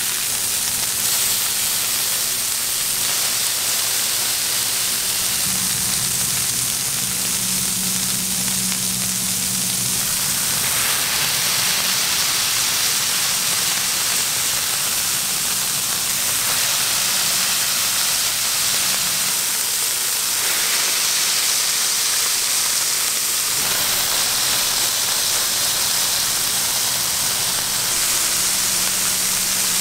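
Bacon strips and beef burger patties sizzling on a hot flat-top griddle, a steady hiss that shifts in tone a few times, with a low steady hum underneath.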